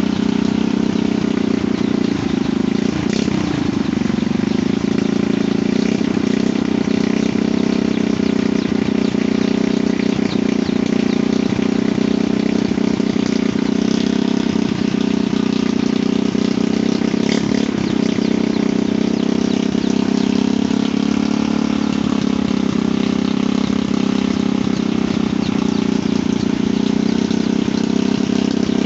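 Small engine driving a rope hoist winch at a mine shaft, running steadily at an even speed.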